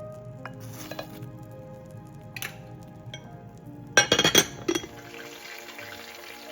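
Metal and glass cookware clinking a few times, then a brief loud clatter about four seconds in, followed by a soft frying sizzle, over background music.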